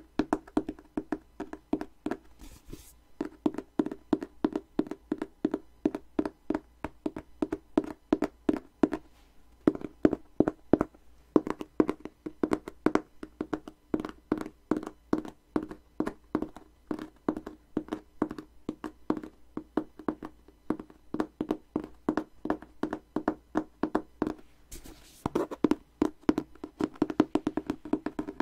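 Fast fingertip tapping on a small hand-held box, many quick taps a second in continuous runs, with short pauses about three seconds in and again near the end.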